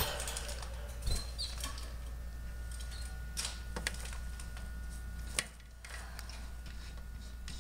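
Scattered light clicks and taps over a low steady hum, with one sharper click about five seconds in.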